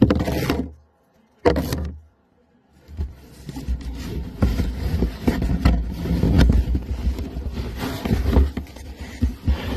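Cardboard box scraping and rustling as beagles push their heads and noses into it, the box rubbing close to the phone. Two short bursts in the first two seconds and a brief silence, then steady scratchy rubbing with many small clicks.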